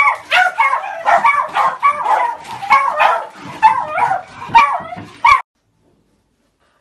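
Dogs, beagles among them, yipping and barking excitedly in a rapid string of high yips, about three a second. The calls cut off suddenly about five and a half seconds in.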